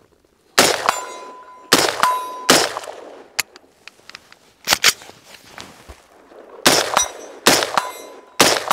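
AR-15 semi-automatic rifle fired about seven times at an uneven pace, singly and in quick pairs. Several shots are followed a moment later by a short metallic ring from a distant steel target being hit.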